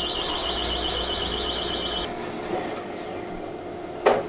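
Large 4.5-horsepower resaw bandsaw cutting through a green log bowl blank, with a high warbling squeal that stops abruptly about two seconds in as the cut ends, over the steady noise of the saw and a dust collector. A sharp knock comes near the end.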